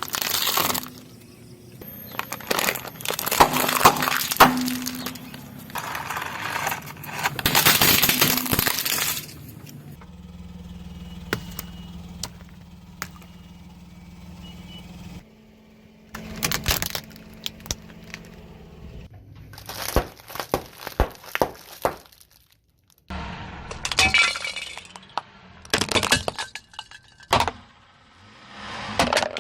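Objects being crushed under a car's tyres: long crunching, cracking bursts, then many short sharp cracks and snaps. A low steady hum fills a stretch of several seconds in the middle, with no cracking.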